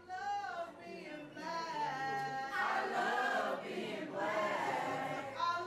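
A choir singing, several voices together on held, wavering notes.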